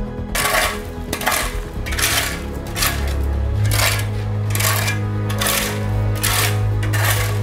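Steel shovel scraping into loose gravel and dirt and tipping it into a metal bucket, stroke after stroke, roughly once a second, over background music.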